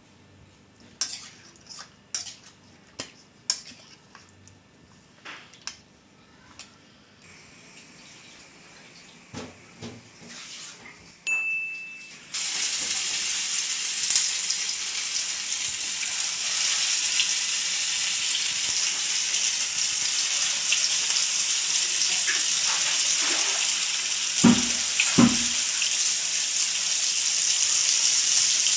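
Chicken pieces frying in hot oil in a pan: a loud steady sizzle that begins suddenly about twelve seconds in, with two dull knocks near the end. Before the sizzle, a run of light clinks from a spoon in a ceramic bowl of marinated chicken.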